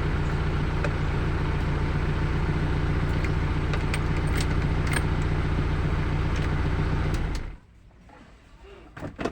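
Car engine idling steadily, then switched off about seven seconds in; a single soft knock follows shortly before the end.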